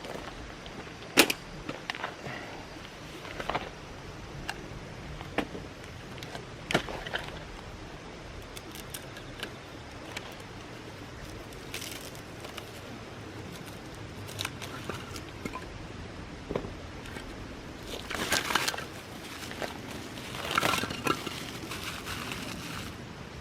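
Firewood cracking and snapping: scattered sharp cracks a few seconds apart, the loudest about a second in, with two short rustling bursts near the end.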